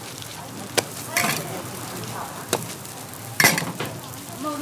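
Hotteok (Korean sweet pancakes) sizzling on a dry, unoiled steel griddle, with sharp metallic clanks as stainless-steel hotteok presses are handled on it. There are three clanks, the loudest about three and a half seconds in.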